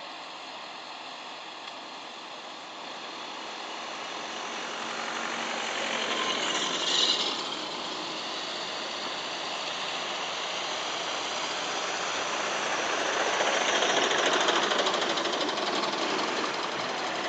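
Diesel lorries driving past on a snowy road, with engines running and tyres on slush. The loudest pass swells and fades around fourteen to fifteen seconds in as a lorry goes by close, and there is a short hiss about seven seconds in.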